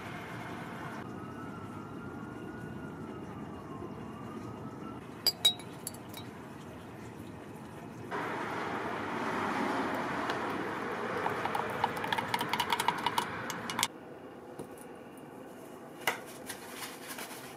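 A faint siren wailing and gliding up and down over steady background noise, then a louder stretch of wet crackling and fizzing from a glass of muriatic acid for about six seconds, with a few sharp clicks near the end.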